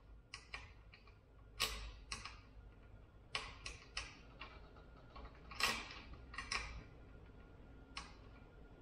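Irregular light clicks and taps of bolts, nuts and the plastic A-arm guard being worked by hand as the carriage bolts are lined up and lock nuts threaded on. The two loudest taps come about one and a half and five and a half seconds in.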